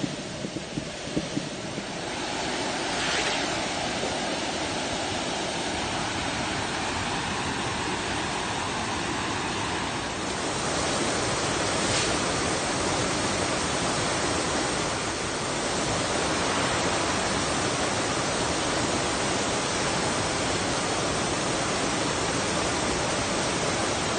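Waterfall rushing: a steady wash of falling-water noise that grows louder about ten seconds in.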